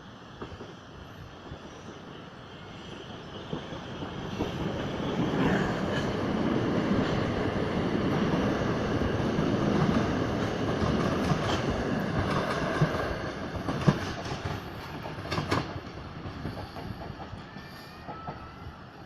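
Class 377 Electrostar electric multiple unit passing, its wheels clattering over the rails. It builds up over a few seconds, stays loud for about ten seconds with a few sharp clacks near the end, then fades away.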